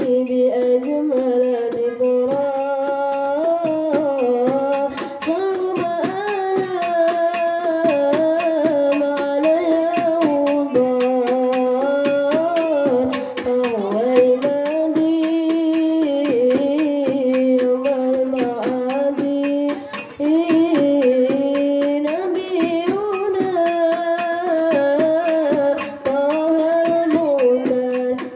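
A girl singing a sholawat, an Islamic devotional song, solo into a microphone: a slow melody of long held, wavering notes with brief pauses for breath.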